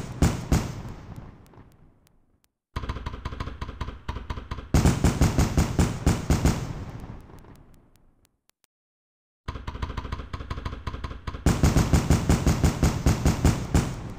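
Fireworks going off in rapid volleys of bangs, about four a second. One volley fades out at the start, then two more each start suddenly, get louder a couple of seconds in and die away, with a second of dead silence between the last two.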